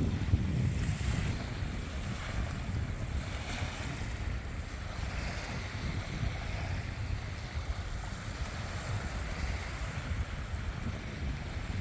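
Sea waves washing onto the shore, swelling and falling every few seconds, with wind buffeting the microphone in a steady low rumble.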